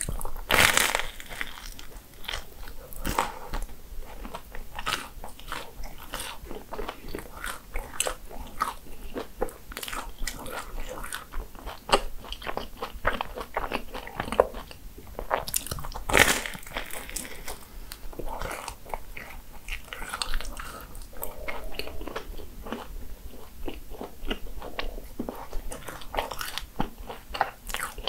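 Close-miked eating of croffles (crisp croissant waffles): repeated crunching bites and chewing. The loudest crunches come about half a second in and again around 16 seconds.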